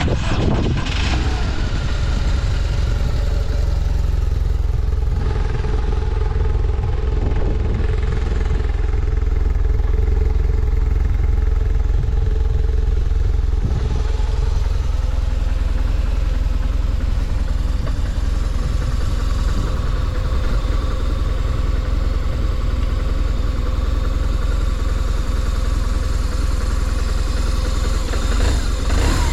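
BMW R1200R's boxer twin running steadily at idle, with the revs falling away about a second in and rising again right at the end; the seller calls it free of abnormal noise.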